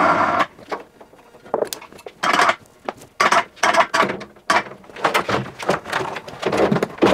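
Electric travel hoist motor running, stopping about half a second in. It is followed by a series of irregular knocks, clunks and scrapes as the washing machine's tub and drum assembly is hoisted and guided out of the metal cabinet.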